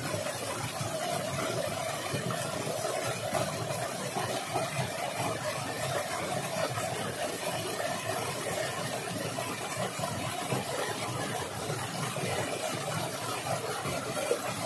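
Small waterfall pouring onto rocks: a steady, unbroken rush of water.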